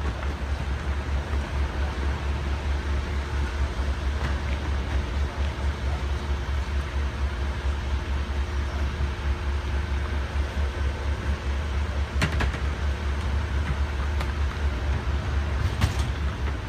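Steady rush of water falling through the stage's water-organ columns over a heavy, fluttering low rumble. Two brief sharp clicks come late on.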